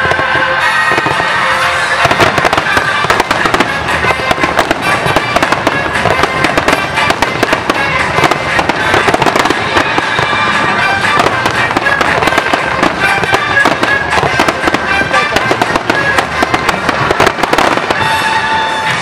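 A dense barrage of fireworks: shell bursts and crackling follow one another rapidly and overlap, with no pause, while music plays underneath with sustained tones.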